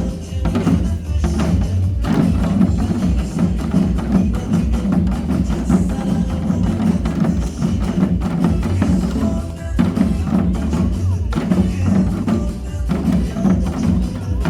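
A drum ensemble striking drums in time with recorded backing music that has a steady beat.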